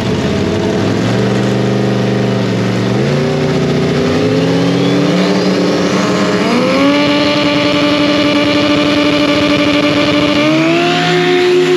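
Drag-racing engines held at steady high revs on the starting line, the pitch stepping up sharply about four times and holding between steps.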